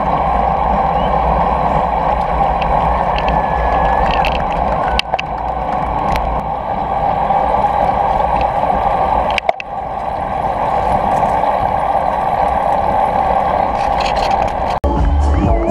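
Steady wind noise and low road rumble from a bicycle-mounted camera rolling at speed. About a second before the end it cuts sharply to music.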